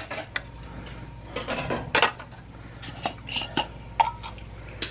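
Metal tongs clinking and scraping against a cooking pot and an aluminium foil pan as pieces of pot roast are lifted out. The clinks come irregularly, in a quick cluster about a second and a half to two seconds in, then singly.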